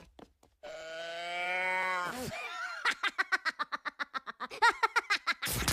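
Cartoon Minion voices: one long held cry that rises slightly in pitch and then drops away, followed by a rapid string of short giggling vocal sounds, about five a second. A loud burst of noise comes right at the end.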